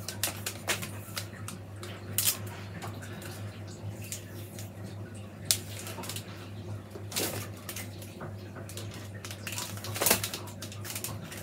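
Willow rods being bent and wound into a wreath hoop: scattered rustles, ticks and clicks of the stems rubbing and tapping against each other, with the sharpest knocks about five and a half and ten seconds in.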